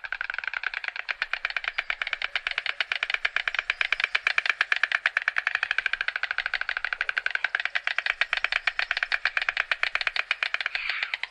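White stork clattering its bill: a long, fast, even rattle of clicks.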